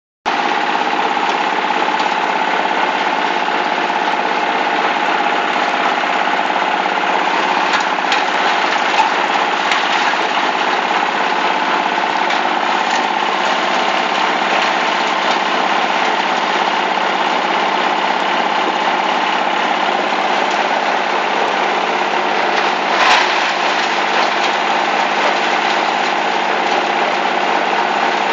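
Engine-driven oil palm frond chopper running steadily at a constant speed, with a few brief louder cracks, the loudest about four-fifths of the way through.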